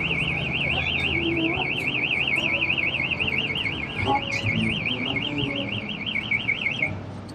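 Electronic alarm sounding a fast, even warble, one tone rapidly rising and falling, cutting off near the end.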